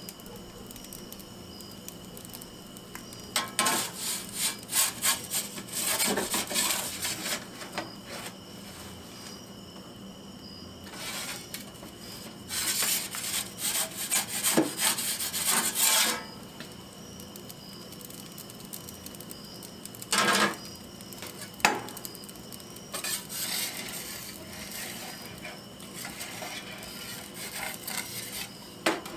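A metal pizza turning peel scraping and rubbing against the stone floor of an Ooni Koda pizza oven as the pizza is lifted and turned, in three spells of scraping with a couple of short knocks between. A steady faint hum runs underneath.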